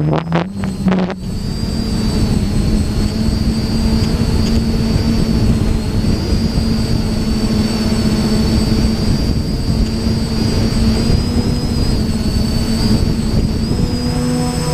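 DJI FPV drone's motors and propellers running at speed: a steady high whine over a dense rushing drone noise. The sound drops and surges briefly in the first second, then holds steady.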